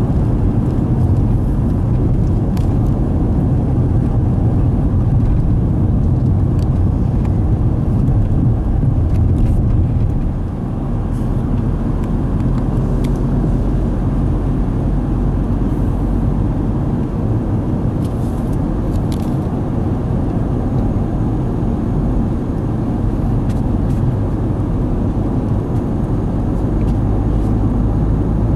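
Steady low rumble of tyre and engine noise heard from inside a car driving at speed on an expressway among other traffic.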